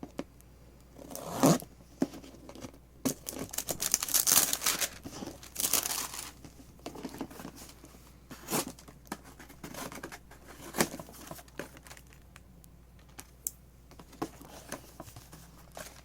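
A mystery box's packaging being torn open and handled: irregular tearing and crinkling, loudest about a second and a half in and again around four to six seconds in.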